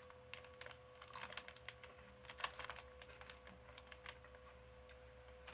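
Faint, irregular crunching clicks of a chocolate-covered wafer snack being bitten and chewed, over a faint steady hum.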